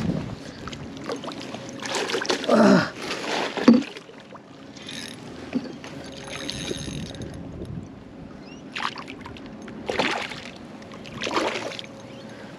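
Water slapping and splashing against a small skiff's hull in short bursts while a big hooked flathead is fought. A couple of brief voice sounds come about two to four seconds in.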